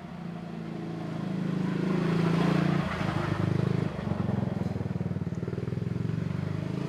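A motor vehicle's engine running close by, growing louder about two to three seconds in and then running on with a rapid pulsing beat.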